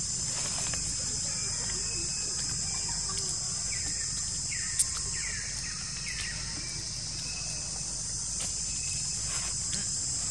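Steady high-pitched insect chorus, with a few short chirping calls in the middle and a single sharp click a little under five seconds in.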